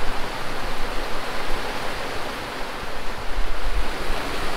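Steady rush of wind, rain and sea aboard a sailing yacht under way in the rain, with low wind buffeting on the microphone a little after three seconds in.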